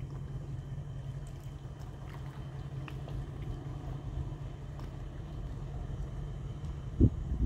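Diesel-electric locomotive engine running with a steady low drone. There are a few light clicks and one sharp thump near the end.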